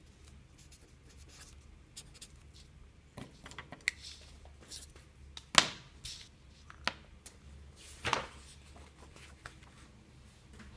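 Pen writing on paper, with scattered small ticks and scratches and a few louder scuffs and clicks of the paper sheet being handled, the loudest about halfway through.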